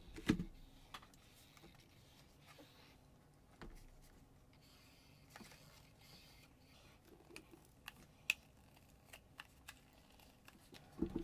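Soft handling sounds of cotton swabs rubbing acetone onto the back of a cardboard blister card, with scattered light clicks and taps of card and plastic. A knock comes just after the start and a sharper tick about eight seconds in.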